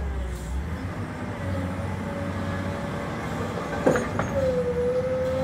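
Hydraulic excavator running: steady diesel engine rumble with a whine, and a sharp knock about four seconds in, after which the whine holds louder and steady.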